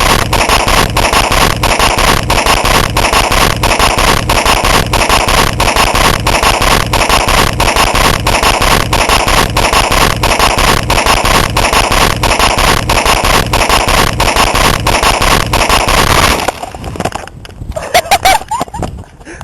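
A bundle of about fifty taped-together firecrackers going off in a continuous rapid crackle of bangs for about sixteen seconds, then a few last scattered pops.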